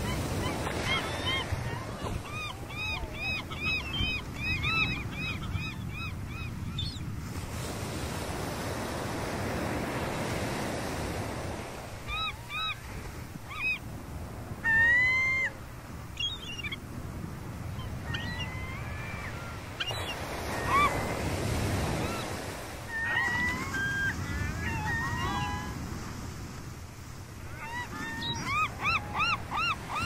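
Gulls calling over steady surf and wind: runs of quick, repeated calls, with one louder single call about halfway through and another fast run near the end.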